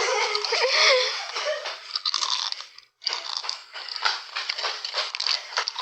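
Potato chips being crunched and chewed close to the microphone: dense, irregular crackling, with a brief break about halfway.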